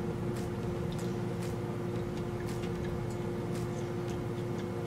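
Steady kitchen hum with one held tone, and scattered faint clicks from eating with a fork.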